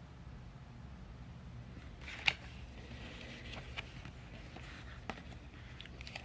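Clear plastic packaging bag crinkling as it is picked up and handled, with a few sharp clicks and taps, the loudest about two seconds in. A faint steady low hum runs underneath.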